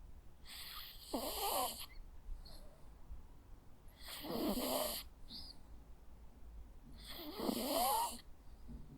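A sleeping Jack Russell Terrier snoring: three raspy snores about three seconds apart, each with a thin squeaky whistle that wavers in pitch.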